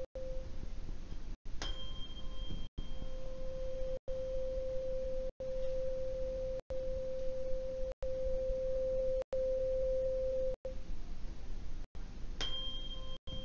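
A 523.2 Hz tuning fork rings with a steady pure tone over the mouth of a resonance tube. It is struck with a rubber mallet about a second and a half in, and again near the end, each strike adding a brief higher ring that fades. The sound drops out for an instant about every second and a bit.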